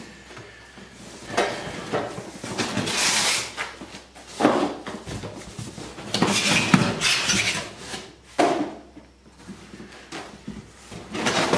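Cardboard box and packing being handled as a boxed chop saw is unpacked: irregular rustling, scraping and light knocks, coming in several separate bursts.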